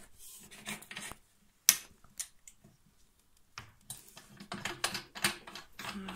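Irregular small clicks and knocks of screws and fixing hardware being handled and fitted to hold a dibond panel on a CNC machine bed. One sharp click comes a couple of seconds in, and a quick run of clicks follows in the second half.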